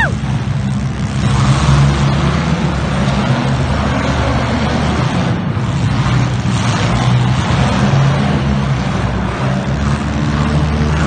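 Engines of several demolition derby cars running hard together, a steady low engine drone under a loud wash of noise.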